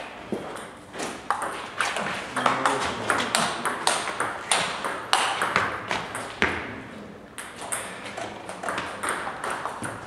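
Table tennis ball being struck by rubber-faced bats and bouncing on the table, making quick, sharp, irregular clicks several times a second through a rally, with echo from the hall.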